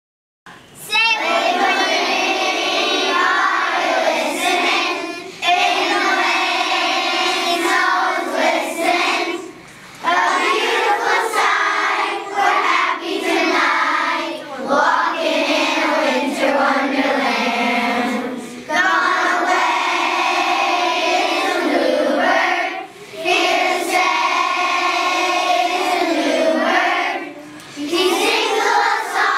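A large group of young children singing together in unison, in phrases of a few seconds with short breaths between them.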